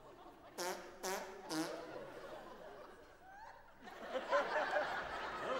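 Three short pitched blasts about half a second apart, then audience laughter from about four seconds in.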